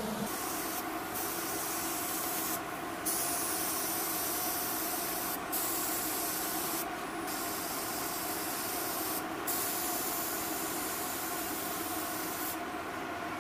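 Compressed-air paint spray gun hissing in repeated passes of about one and a half to three seconds each, with short breaks where the trigger is released, about six passes in all. Under it runs a steady machine hum from the paint booth's ventilation.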